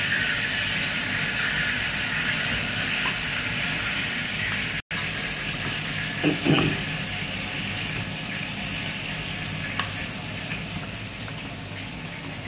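A steady hissing noise, broken by a split-second dropout to silence about five seconds in. A brief voice-like sound comes about six and a half seconds in.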